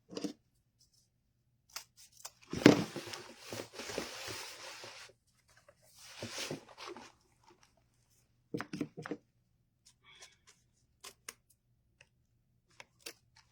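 Ribbon and craft supplies being handled: a sharp knock, then a couple of seconds of rustling and crinkling, another short rustle, and scattered light clicks and taps.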